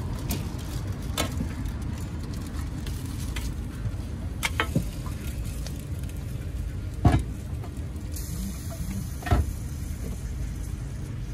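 Egg and a burger patty frying on a flat-top steel griddle, sizzling steadily, with a few sharp knocks; the loudest two come about seven and nine seconds in.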